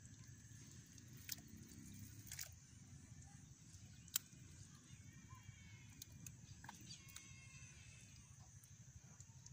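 Near silence: faint outdoor background with a low rumble and a few sharp clicks.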